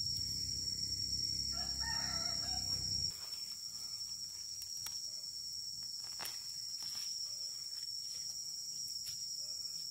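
A rooster crows once, beginning about a second and a half in, over a steady high-pitched trill of crickets. A low rumble stops about three seconds in, and light scattered clicks follow.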